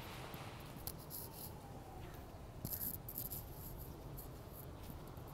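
Kittens eating: small crisp chewing clicks in two short clusters, about a second in and again near the middle.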